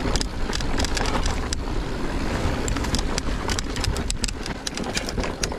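Mountain bike rolling downhill on a rough trail: steady tyre noise on dirt with frequent clicks and rattles from the bike, and wind rumbling on the microphone.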